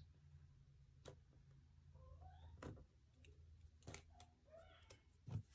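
Near silence with a few faint clicks and taps of cardstock being handled as a small die-cut paper bow is folded and pressed together by hand; the last tap, near the end, is a little louder.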